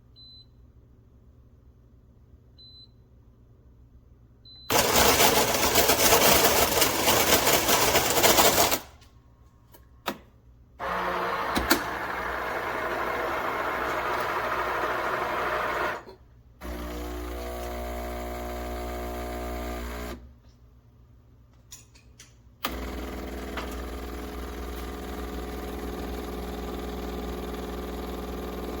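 De'Longhi TrueBrew coffee maker: three short high beeps, then its built-in grinder grinding beans for about four seconds. The machine then runs its pump and brews in several steady spells with brief pauses, a low hum underneath.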